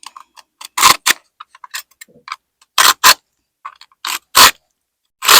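Metal scraper raking out cracks in cement parging on a house wall: short, loud scraping strokes, several in a row, with light clicks and ticks of grit between them, widening the cracks so repair compound will adhere.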